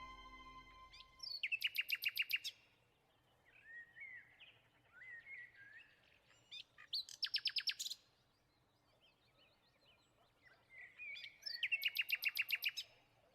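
A bird calling: three loud, rapid trills of about ten notes a second, each lasting about a second, with softer twittering notes between them.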